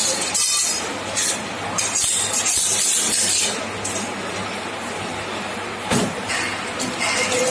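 Ice cream cone baking machine running: a steady low hum with bursts of hissing over the first few seconds, and a single knock about six seconds in.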